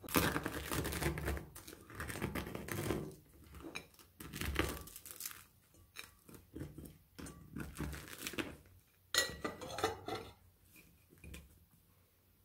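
Serrated bread knife sawing through the crisp crust of a crusty hard roll, in bouts of crackling strokes, then the crust cracking and crackling as the loaf is broken open by hand.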